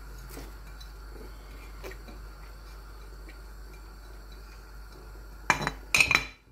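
Kitchenware knocking on an aluminium pressure cooker pot: a few faint taps as chopped coriander is scraped off a plate into the pot, then two loud clatters about half a second apart near the end.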